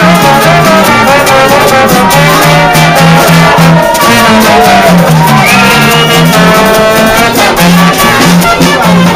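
Live brass band playing an upbeat tune, loud: trumpet, trombone and saxophone over a snare-and-bass-drum kit and banjo, with a bouncing bass line. A note slides upward about five seconds in.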